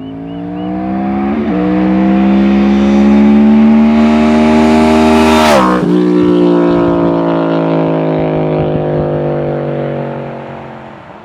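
2009 Yamaha R1's crossplane inline-four passing by at speed: the engine note builds as it approaches, drops sharply in pitch as it goes past about five and a half seconds in, then fades away.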